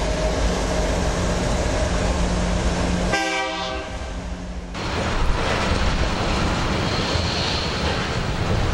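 Freight train of hopper and tank cars rolling past close by, a steady rumble of steel wheels on the rails. About three seconds in, a pitched sound with many overtones cuts in for a second and a half while the low rumble briefly falls away.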